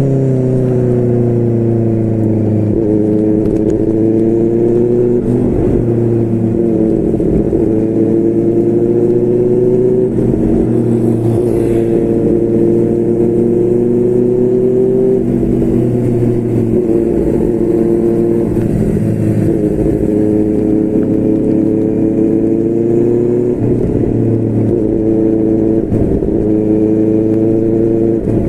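QJMotor SRK600's inline-four engine running through a Yoshimura R11 exhaust while riding: the note falls as the throttle eases off at the start, then holds a fairly steady cruising pitch with small rises and dips and brief breaks every few seconds.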